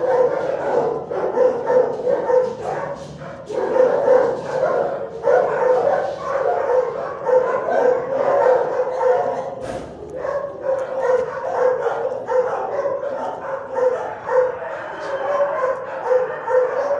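Several shelter dogs barking and yipping continuously, their barks overlapping into a steady din with no pauses.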